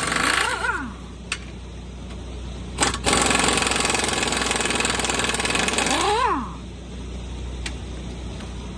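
Pneumatic impact wrench running in two loud bursts, the second lasting about three seconds, each ending with the air motor whirring up and down in pitch as the trigger is let go; a steady low hum runs underneath.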